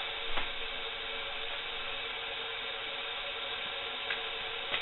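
Steady hiss of two cups of water in a metal pot just starting to simmer over a homemade alcohol stove, with a faint tick about half a second in and another near the end.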